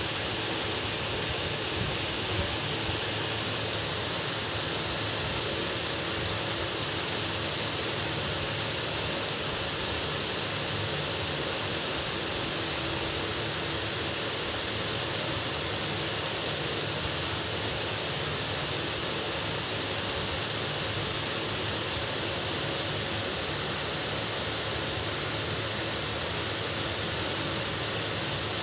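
A steady, even hiss that does not change, with no other sound.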